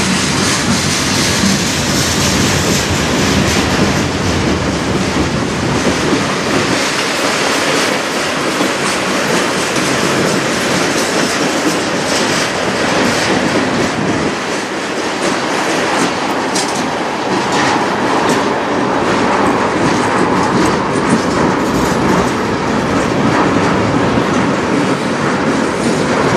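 Freight cars of a long, slow manifest train rolling past close by: a steady rumble and clatter of steel wheels on rail, with repeated clicks as the wheels pass over the track.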